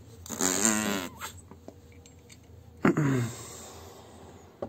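A man's wordless groan of dismay, drawn out with a wavering pitch, followed about three seconds in by a short sigh that starts suddenly and falls in pitch.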